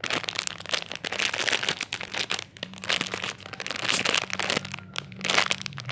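Plastic packaging crinkling as a squishy toy is unwrapped and handled, a dense, irregular crackle throughout.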